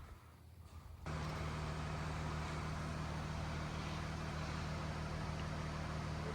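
A steady low mechanical hum with a faint hiss, which starts abruptly about a second in and then holds even.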